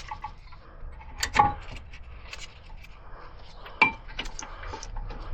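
Metal tools and brake parts clinking and knocking as they are handled, with two sharper knocks, about a second and a half in and just before four seconds.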